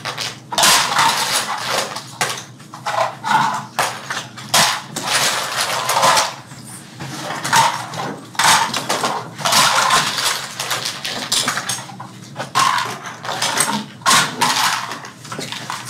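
Continuous irregular clattering and clinking of small toy airplane parts being picked up, set down and fitted together by hand.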